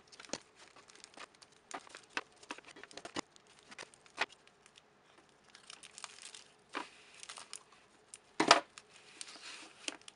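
Foil candy wrappers crinkling and rustling as the chocolate squares are handled, with scattered light clicks and taps and snips of scissors through ribbon. A sharper click comes about eight and a half seconds in.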